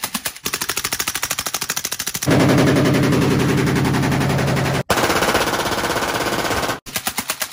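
Full-auto gunfire in cut-together bursts. A suppressed 7.62×39 Arsenal SLR-107 AK rifle, firing subsonic ammunition, fires rapid bursts of about ten shots a second. About two seconds in, a much louder burst comes from an unsuppressed short-barrelled Arsenal SLR-104UR AK. From about five seconds a Glock 18 machine pistol fires a full-auto burst, and near the end the suppressed rifle bursts return.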